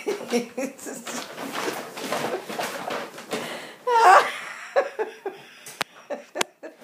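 A woman laughing hard in a long run of breathy bursts, with a louder, higher-pitched peak about four seconds in.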